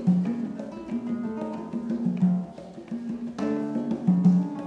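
Spanish guitar and congas playing together: plucked guitar notes over hand-drum strokes, with a full strummed chord about three and a half seconds in.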